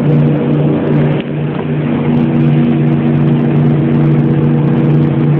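Motorboat engine running steadily under way, a constant hum over the rush of wind and water.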